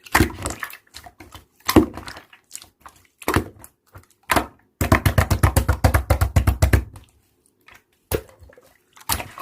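Slime being pressed and poked, giving sticky clicks and pops. About halfway through comes a fast, even run of clicks, about ten a second, lasting some two seconds.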